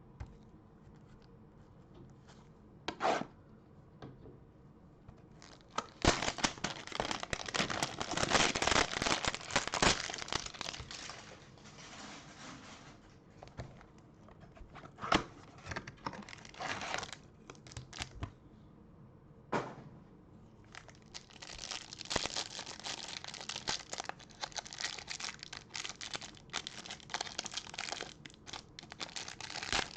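Trading-card pack wrappers being torn open and crinkled, in bursts of ripping and rustling with short gaps between them.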